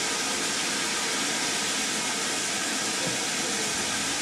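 Steady hiss of escaping steam from an LNER B1 class 4-6-0 steam locomotive, even and unbroken with no chuffing beat.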